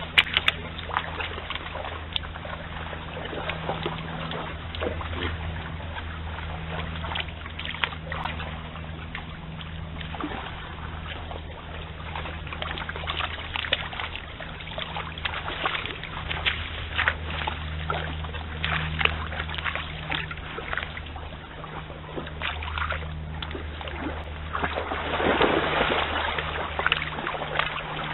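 Stream water trickling and lapping, with many small clicks and splashes over a steady low hum. Near the end the water sound grows louder and denser as red deer wade and splash into the stream.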